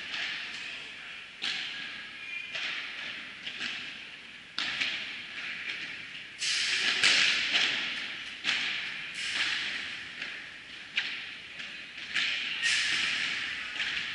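Padel ball hits in a rally: sharp pops of solid padel rackets striking the ball and the ball bouncing on the court and glass walls, irregularly spaced about a second apart, each ringing on in a large indoor hall. The hits come thicker and louder a little past the middle.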